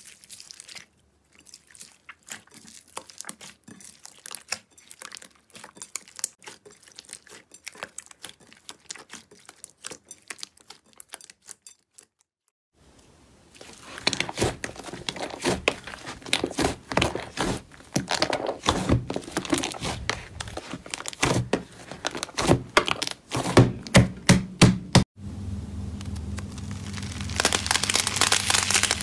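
Hands squeezing, pressing and stretching slime, a stream of sticky crackles and pops. It is quieter at first with a foam-bead slime, then louder with thick slime pressed in a tub after a short silence, and a dense fine crackle near the end as a fluffy slime is pulled apart.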